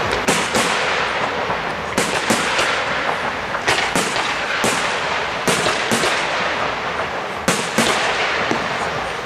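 Fireworks display: aerial shells bursting, a string of sharp bangs at irregular intervals over a steady wash of noise.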